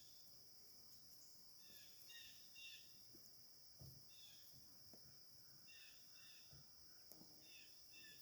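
Faint outdoor ambience: a steady high insect drone with small clusters of short bird chirps several times.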